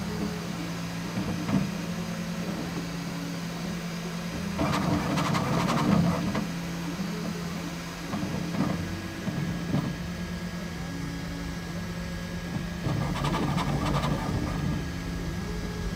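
Bambu Lab X1 Carbon 3D printer running a fast print: a steady motor hum whose tones shift in steps as the print head changes moves, with two louder, busier stretches. Part of it is heard before and part after foam sound insulation was added inside the enclosure.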